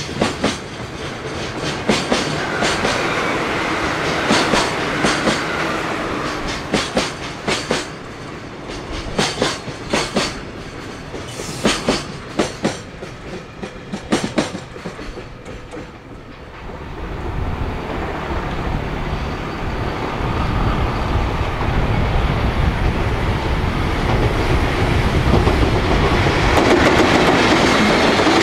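Freight train rolling past, its wagon wheels clattering over rail joints in quick uneven clicks. About sixteen seconds in the clicking dies away and a low rumble builds steadily, louder near the end.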